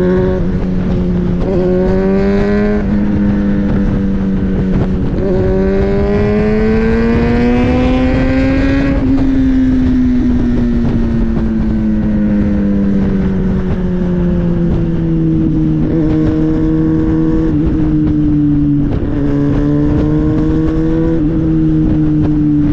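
Kawasaki ZX-6R inline-four sport-bike engine under way, rising in pitch as it accelerates about two seconds in and again from about five to nine seconds, then slowly falling as it eases off, over a steady rush of wind.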